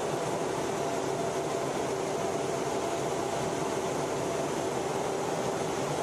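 Steady, unvarying noise inside an F/A-18 Hornet's cockpit in flight: engine and airflow noise with a constant hum of a couple of tones over it.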